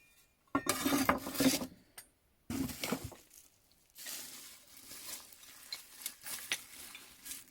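Metal hand tools being handled and rummaged through in a box: two loud bursts of clattering and rubbing in the first three seconds, then quieter continuous rustling and scraping with small clinks.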